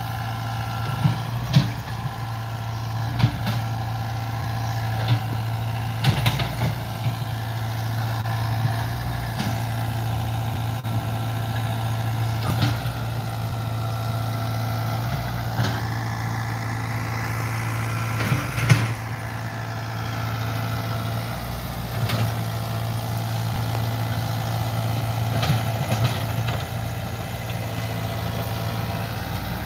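Diesel engine of a tracked excavator running steadily as the machine travels over cleared ground, with sharp knocks every few seconds and a rising whine about halfway through.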